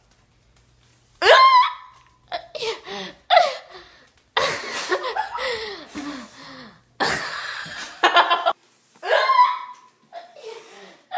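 Young women laughing and shrieking in bursts while straining, with breathy gasps in between and a sharp rising squeal about a second in and again near nine seconds.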